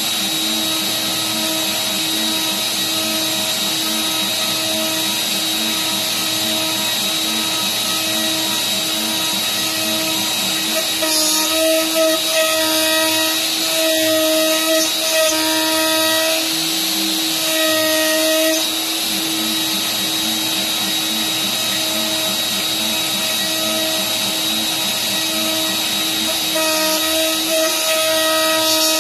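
CNC router spindle running with a steady high whine as its bit cuts a truss rod channel into a wooden guitar neck. The cutting gets louder and rougher in stretches, from about a third of the way in and again near the end.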